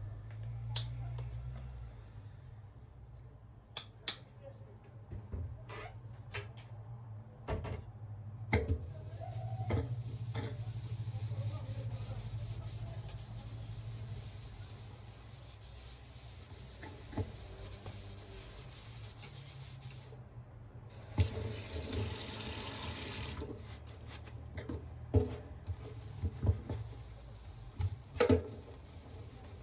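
Water running from a tap, louder for a couple of seconds a little past the middle, with scattered clicks and knocks of things being handled.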